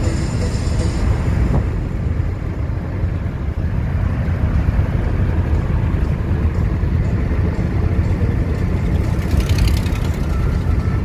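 Steady low rumble of road and engine noise inside a moving car's cabin. A brief high hiss comes about nine and a half seconds in.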